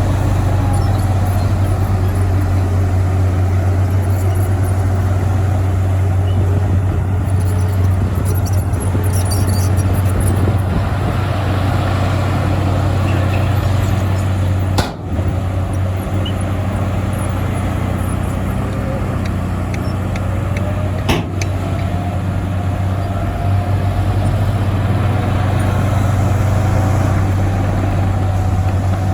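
Heavy diesel earthmoving machinery running steadily with a deep low drone. The sound dips briefly about halfway through, and a faint rising whine comes in during the second half.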